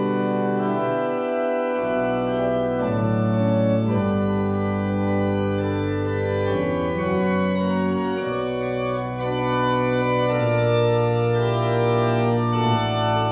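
Cotswold Hybrid 'Burford' organ playing slow sustained chords over a held pedal bass line, the chords changing every second or two.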